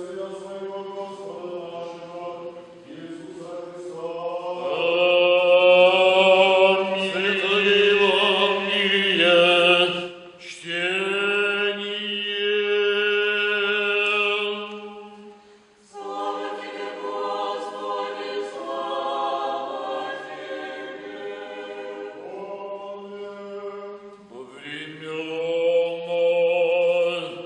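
Orthodox church choir singing liturgical chant: several voices in long held notes over a steady low part. It grows louder about five seconds in and breaks off briefly twice, near ten and sixteen seconds.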